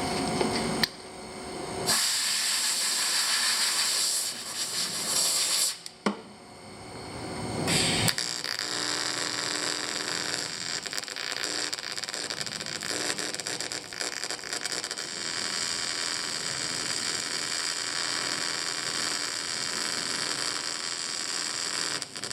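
A couple of hissing bursts of air, then the arc of an AC TIG welder running at 120 amps on an aluminium fuel tank: a steady hiss with a faint buzz, held for about fourteen seconds.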